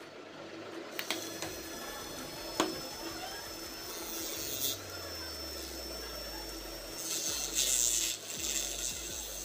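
Small DC motor running with a white plastic (PVC sheet) pulley disc on its shaft while a knife blade is pressed against the spinning edge to trim it, giving a steady motor hum with scraping. The scraping is loudest about seven to eight and a half seconds in, with two sharp clicks about one and two and a half seconds in.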